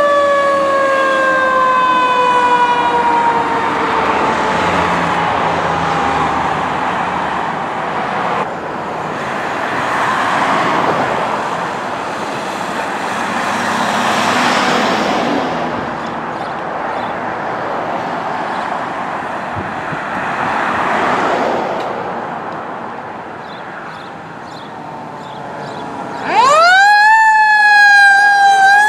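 Fire truck sirens. A siren falls slowly in pitch as one truck moves off, then rushing road and engine noise swells and fades. Near the end a loud siren rises sharply in pitch as the next truck comes close.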